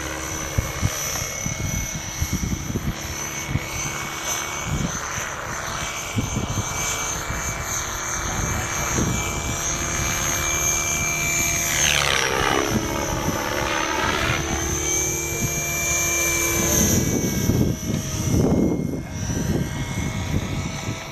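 Align T-Rex 600E electric RC helicopter in flight, its motor and rotors making a steady whine. About twelve seconds in, the pitch of the whine dips and climbs back. Wind buffets the microphone with low rumbles, most heavily near the end.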